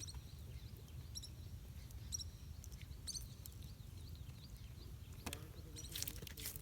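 Small birds chirping: a short high chirp repeats about once a second, with fainter flicking calls in between, over a low steady rumble. A few crackling clicks come near the end.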